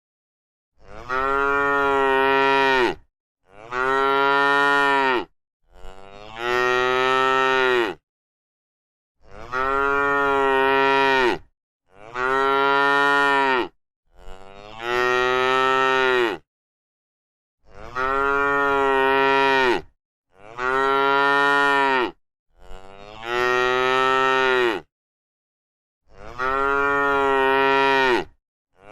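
Cow mooing over and over: about ten long moos of around two seconds each, with silence between them.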